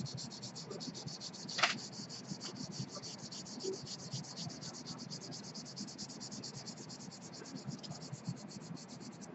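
Charcoal pencil scratching across drawing paper in quick, even back-and-forth shading strokes, with one sharp tap about a second and a half in.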